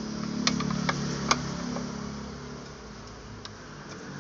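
Screwdriver clicking against a screw and the plastic housing of an air fryer being taken apart, three sharp clicks in the first second and a half and a fainter one later, over a low steady hum.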